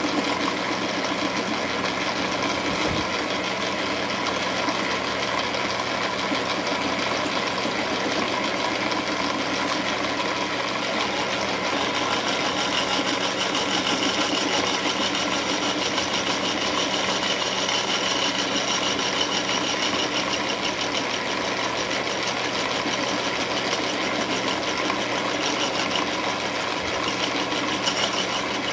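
Milling machine running with its cutter taking a cut into a bench vise handle: a steady, dense machining noise. About eleven seconds in a thin high whine joins it and carries on.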